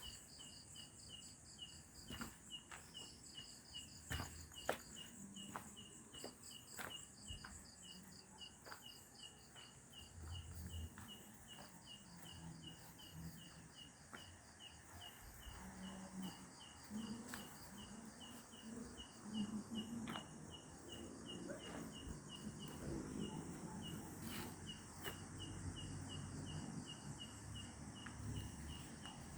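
Night insects, crickets or similar, chirping in a rapid, even, unbroken series of short high pulses. Occasional faint knocks and low rustling sounds can be heard under the chirping.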